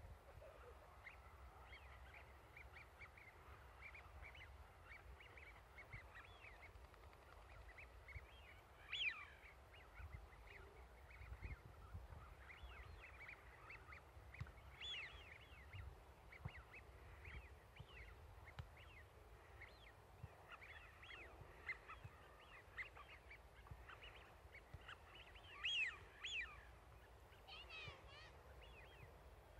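A flock of Eurasian wigeon, the drakes giving short whistled 'piyu' calls over and over, faint overall with a few louder calls scattered through. A low, even rumble of wind lies underneath.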